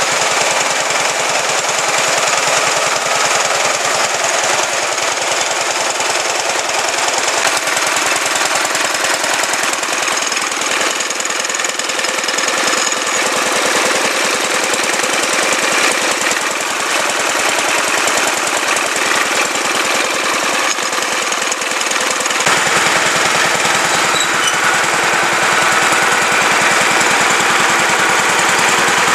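1935 International Harvester LB single-cylinder, hopper-cooled engine running steadily, a fast, even string of exhaust beats. About 22 seconds in the sound turns fuller and deeper.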